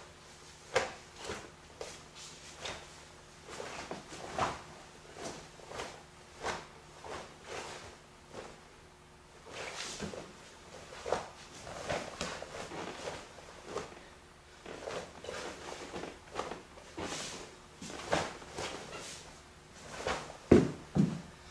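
Cloth swishes and snaps of a karate uniform, hand slaps and bare feet on the mat, coming one after another at an uneven pace as a Kenpo kata is performed slowly, with a pair of louder thuds near the end. A faint steady hum sits underneath.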